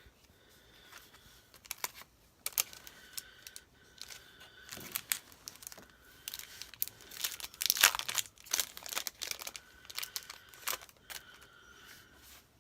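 Paper and plastic packaging crinkling and rustling in the hands, in irregular crackles that are loudest about eight seconds in.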